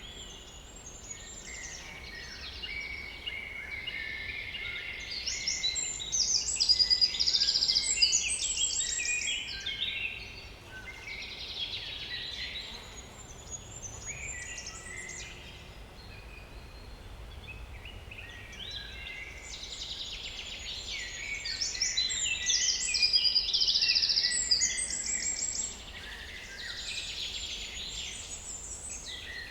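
Small woodland songbirds singing, several voices overlapping. Two long stretches of fast, high, rapidly repeated notes come about five seconds in and again about twenty seconds in, with softer calls between.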